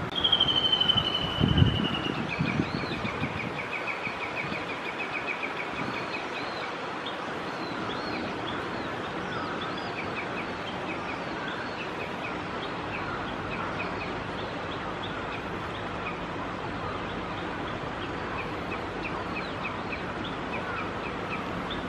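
Japanese bush warbler (uguisu) singing: a long whistled note that slides down, then a fast run of repeated notes lasting several seconds, with shorter bursts of the same notes later on. Other small birds chirp throughout over steady outdoor noise, and a low thump sounds near the start.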